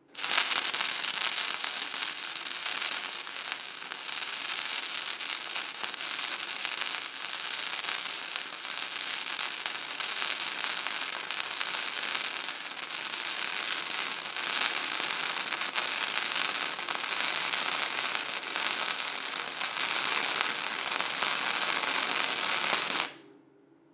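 Gasless flux-core wire-feed welding arc from a modified Harbor Freight 90-amp flux core welder, running one continuous bead into the inside corner of an angle-iron cope joint as a steady, dense crackle. It strikes abruptly at the start and cuts off about a second before the end.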